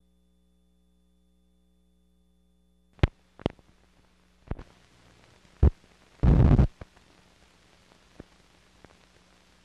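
Faint hum, then the soundtrack of old film leader starting about three seconds in: four sharp pops, a loud half-second burst of noise, then a faint crackling hiss with scattered ticks.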